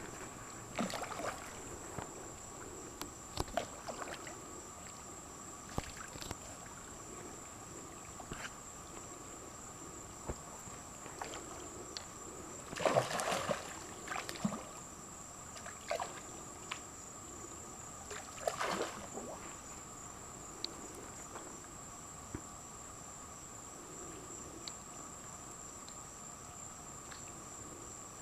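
Otters splashing and sloshing in water as they fish: short, scattered splashes, the loudest a cluster about halfway through and another a few seconds later. Crickets chirr steadily underneath throughout.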